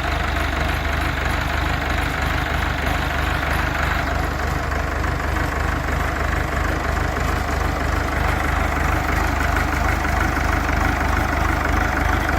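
A 1980 Massey Ferguson 275 tractor's Perkins four-cylinder diesel engine running steadily.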